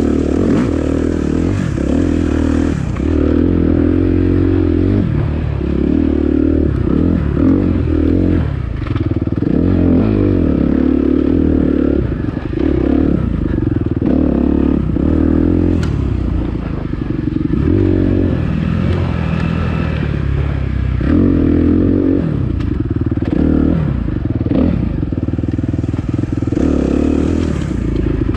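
Dirt bike engine being ridden hard off-road, its pitch rising and falling over and over as the throttle is worked, with rattling and knocks from the bike over rough ground.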